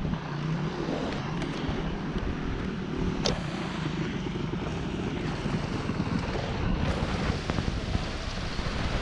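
Dirt bike engine running, with wind on the microphone.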